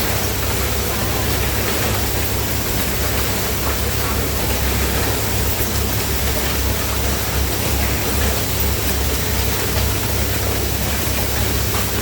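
Automated Rubik's cube assembly line machinery running in a factory hall: a loud, steady mechanical noise with a deep hum underneath.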